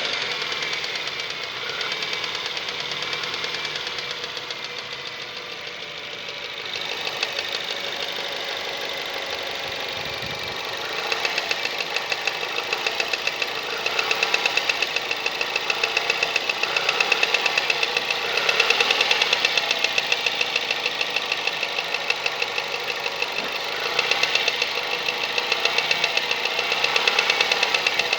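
Mazda 3 1.6 engine running with a fast, regular knocking from its intake manifold flaps. The knocking stands out more sharply from about eleven seconds in.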